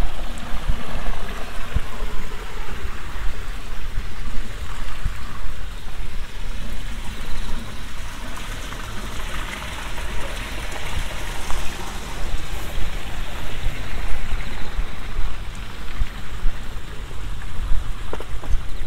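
Wind buffeting the microphone in gusty low rumbles over a steady rushing hiss.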